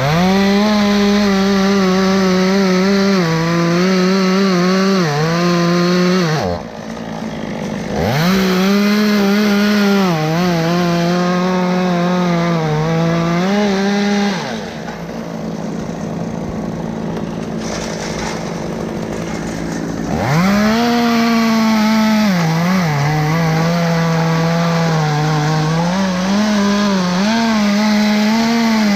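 Two-stroke chainsaw held at high revs and cutting wood in three long runs, its pitch sagging briefly now and then as the chain bites. It drops back between runs, about six seconds in and again for several seconds past the middle.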